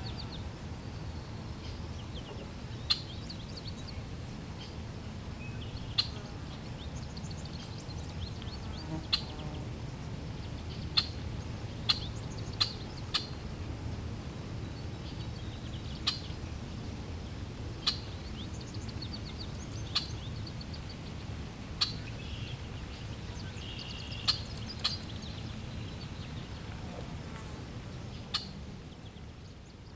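Flowing water making a steady low rush, with scattered bird chirps and sharp clicks every second or two above it. Fades out near the end.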